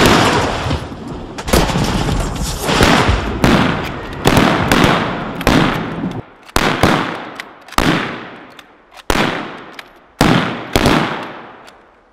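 Gunfire in a firefight. Dense, overlapping shots at first thin out to single rifle shots about a second apart, each with a long echoing tail, and the shooting stops near the end.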